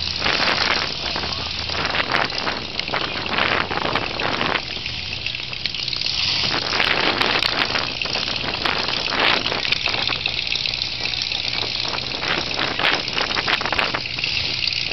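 Wind buffeting the camera microphone, heard as loud, crackling static, over the low, steady running of heavy engines from the excavator and trucks.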